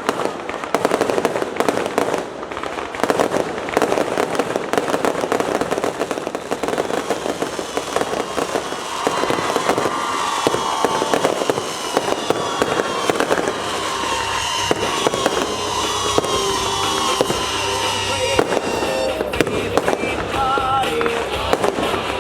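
Fireworks going off in rapid, continuous crackling and popping, with music playing underneath.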